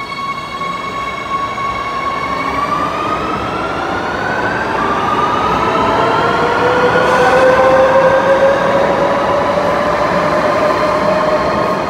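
Madrid Metro line 3 electric train pulling out and accelerating past, with a whine of several tones that begins rising in pitch about two seconds in. It grows louder as the cars go by.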